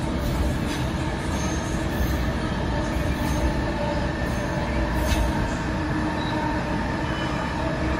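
AirTrain JFK people-mover car running at speed, heard from inside the cabin: a steady rumble of wheels on the guideway with a steady motor whine and an occasional faint squeal or tick.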